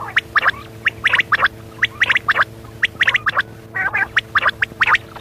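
Quail calling: a quick series of short, sharp notes in clusters of two or three, about a dozen and a half in all, over a steady low hum.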